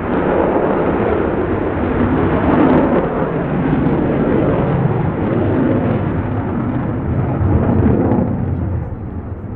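Lockheed Martin F-35A Lightning II jet fighter passing in its display, the deep rumbling roar of its single turbofan engine. The roar swells and wavers, then drops off a little just before the end.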